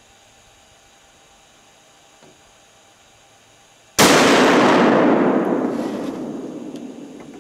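A single loud gunshot about four seconds in, with its echo rolling away over the next three seconds, the high end fading first.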